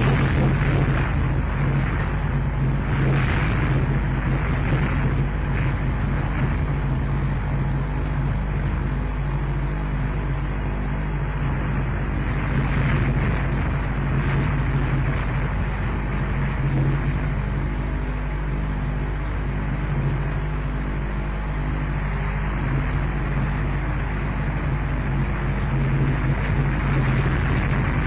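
Steady rumbling hiss with a constant low hum, picked up by the microphone of an outdoor osprey nest webcam.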